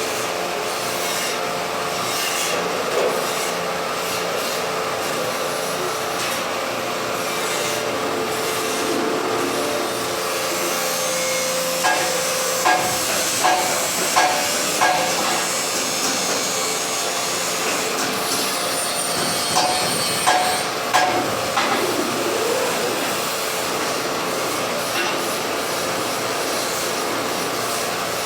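Steady workshop noise with a series of sharp metallic taps on steel, each ringing briefly, in two quick runs about twelve and twenty seconds in.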